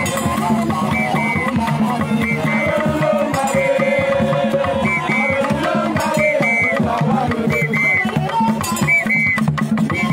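Traditional dance music led by drums, with a steady beat and a high double note that repeats about once a second.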